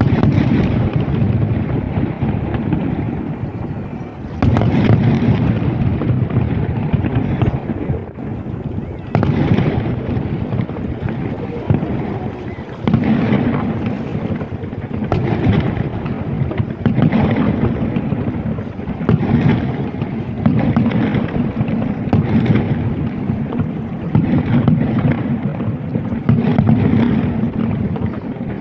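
Fireworks going off in quick succession, a sudden boom every second or two.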